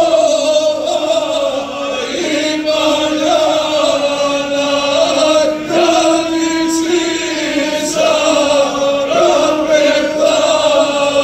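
A group of about ten men singing a traditional Montenegrin folk song together. A lower part holds long notes that step down and up now and then, under a wavering melody line.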